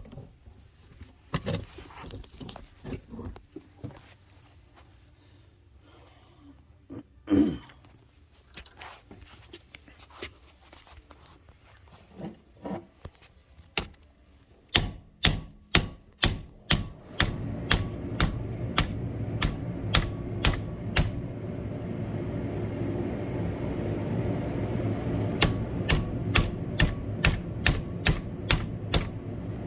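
Metal being struck on a tractor during restoration work: scattered clanks and knocks, then two runs of sharp, evenly spaced strikes about two a second, like hammering. A steady low machine hum sets in about halfway through.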